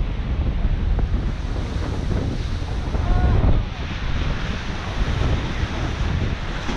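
Ocean surf washing and breaking over shore rocks, with strong wind buffeting the microphone as a low rumble.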